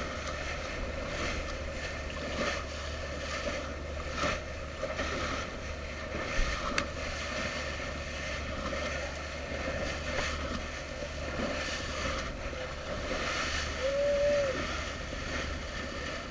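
Boat under way: a steady low engine hum with water rushing past the bow and wind on the microphone. About 14 seconds in, a short whistle-like tone rises and falls once.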